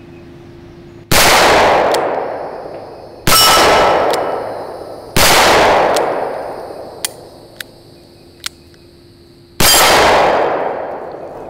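Four shots from a Smith & Wesson Model 610 10mm revolver, fired singly at uneven gaps of about two to four seconds, each echoing and dying away over about two seconds. A few light clicks come between the third and fourth shots.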